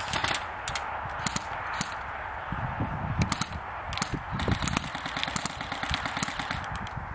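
Airsoft guns firing: sharp snapping shots, some single and some in short rapid bursts.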